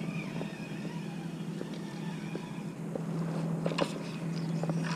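Marine engine idling nearby: a steady low hum that swells slightly after about three seconds, with a few faint clicks near the end.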